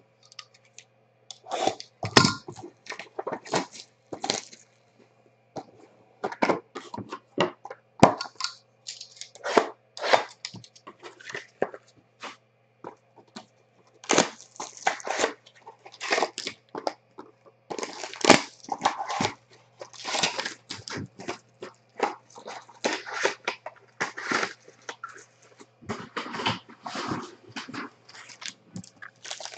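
Plastic shrink wrap and foil packaging of a Triple Threads baseball card box crinkling and tearing as the box is unwrapped by hand: irregular bursts of crackle and rustle, over a faint steady hum.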